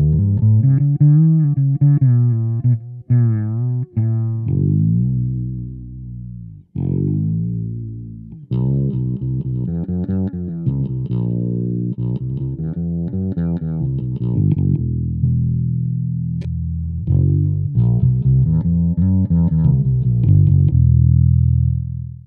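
Short-scale fretless bass played through a small VOX practice amp: sustained notes held with wide vibrato, sliding between pitches, with a quick slide up about seven seconds in.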